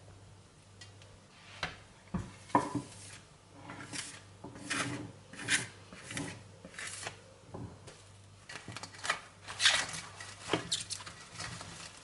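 Hands rubbing and wiping: dough being worked off the fingers in an enamel bowl and loose flour brushed across a kitchen countertop, in irregular scraping strokes.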